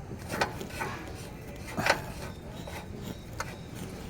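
A few short knocks and scrapes of a tool working on an oxygen sensor as it is loosened and pulled out, the loudest knock just under two seconds in.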